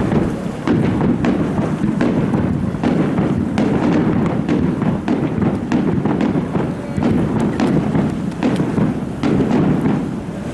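Aerial fireworks shells bursting in a rapid, continuous series of booms and sharp cracks, several a second.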